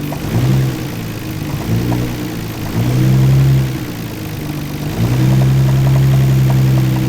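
Nissan Skyline R32 GT-R's RB26DETT twin-turbo inline-six, warmed up, revved up from idle three times in short blips, then held at a steady raised speed from about five seconds in. The engine has a rod knock, which the owner calls not extremely bad.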